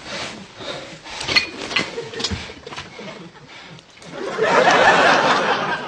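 China and a metal teapot clinking on a tea tray in a few light knocks, then a loud rushing noise for about a second and a half near the end.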